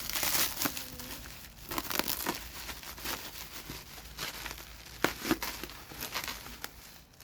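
Packaging being handled and unwrapped: packing material crinkling and tearing in irregular rustles, with a few sharp clicks.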